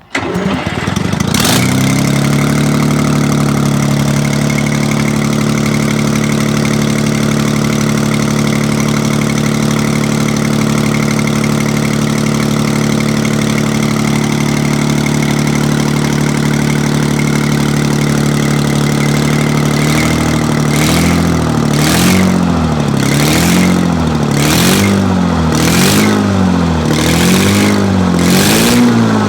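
Detroit Diesel 6V-92 two-stroke V6 diesel engine firing up on its first start after an overhaul, catching at once and settling into a steady idle. About twenty seconds in it is revved up and dropped back repeatedly, roughly once a second.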